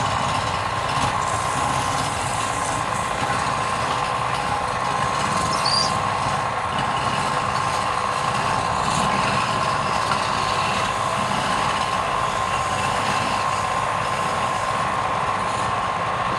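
Wood lathe running steadily: a constant motor whine over an even rushing noise, with a few faint brief high squeaks.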